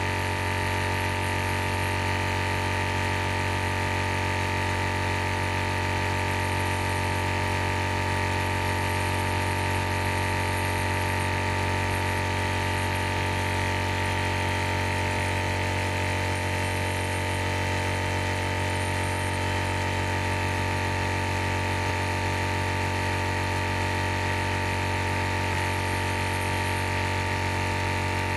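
AceEagle 300 bar high-pressure air compressor running steadily at an unchanging pitch while filling a PCP airgun's air reservoir.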